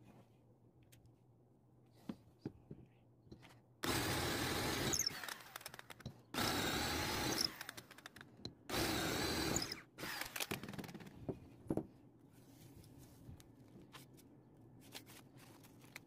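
Power drill with a twist bit boring three holes into a wooden block through masking tape, in three separate bursts of about a second each with the motor whining, followed by a few lighter clicks and knocks.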